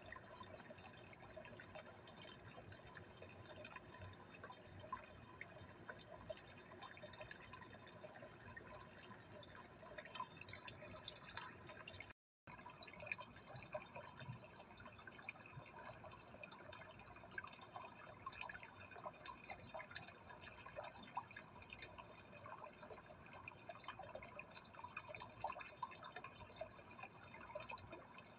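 Faint aquarium water sounds: a steady trickle with many small drips and bubble ticks, as from a tank's filter or aeration. The sound breaks off for a moment about twelve seconds in.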